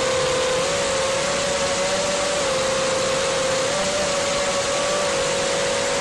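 FPV quadcopter's brushless motors and propellers, heard through its onboard camera: a steady high whine that wavers a little in pitch with the throttle, over a loud rushing hiss of prop wash and wind.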